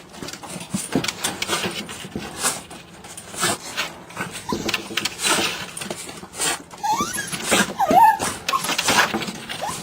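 A chihuahua sneezing again and again in short, sharp noisy bursts, with a few brief high whines about seven and eight seconds in.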